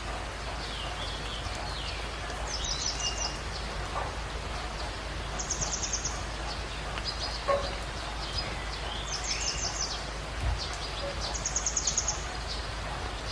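Birds singing over a steady background hiss: one bird repeats a quick, high trill about every three seconds, four times in all, with softer sliding whistles from other birds in between.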